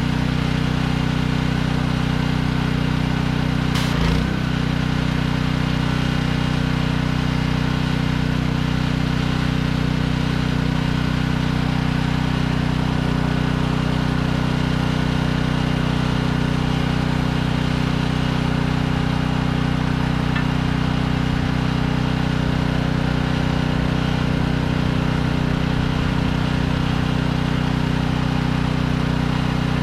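Pressure washer engine running steadily at a constant speed, with one short knock about four seconds in.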